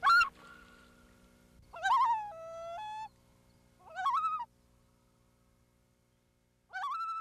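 A bird calling four times, a couple of seconds apart: short pitched honking calls that rise and then hold, the second one longer and stepping down and back up in pitch.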